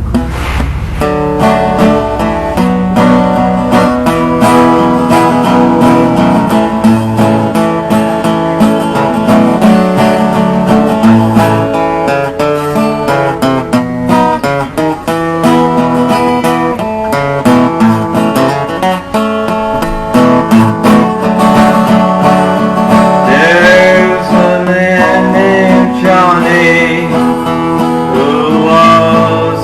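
Acoustic guitar played solo, strumming and picking a country-style song introduction; a man's voice comes in briefly near the end.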